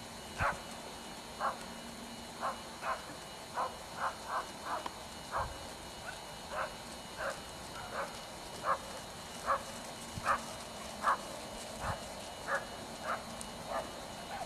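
An animal's short calls, repeated about every three-quarters of a second.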